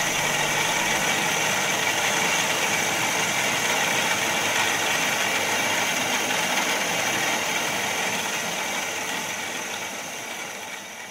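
Milling machine spindle running with a boring head taking a light finishing pass through the bore of a brass eccentric strap: a steady machine noise with a faint high whine, fading away near the end.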